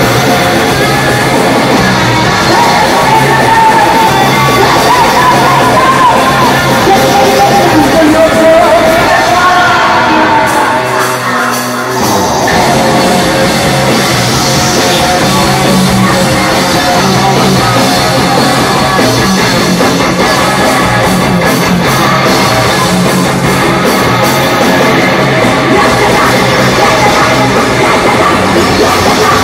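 Loud, distorted live hardcore/industrial noise rock from a 1989 demo recording, a dense wall of band noise with shouted vocals. The low end drops out briefly about eleven seconds in, then the full band comes back in.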